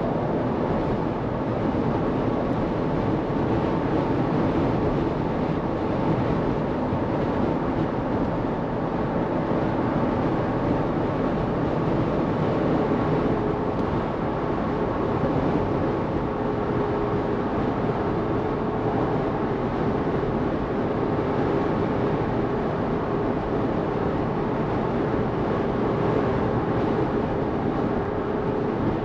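A 2023 Jeep Wrangler Rubicon driving at motorway speed: steady road, tyre and wind noise, with its 2.0-litre four-cylinder petrol engine running under it.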